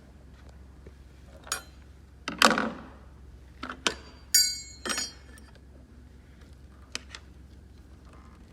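A scattered series of clicks, knocks and metal clinks as tools and motorcycle parts are handled. The loudest is a short scrape about two and a half seconds in, and there is a single ringing metallic clink a little past four seconds.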